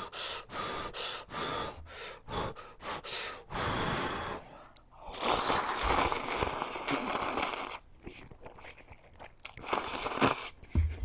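Close-miked slurping and chewing of instant jjamppong ramen noodles. A quick run of short slurps and sucked-in breaths comes first, then one long slurp of about two and a half seconds in the middle, then a few more short slurps near the end.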